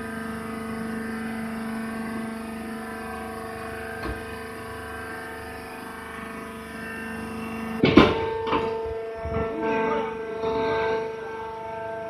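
Hydraulic baler's power unit running with a steady hum of several constant pitches while the bale is wire-tied. About two-thirds of the way through comes a loud metallic clank, followed by a few lighter knocks and rattles.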